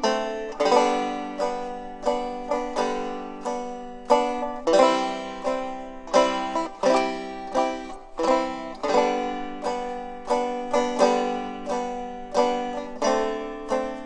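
Background music on a plucked string instrument: a quick run of plucked notes, each struck sharply and ringing off.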